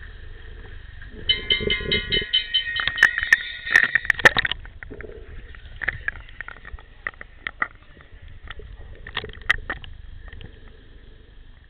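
Underwater hockey play heard through pool water: sharp clicks and knocks, likely sticks and puck striking. A dense pulsing buzz runs from about one to four seconds in and is the loudest part.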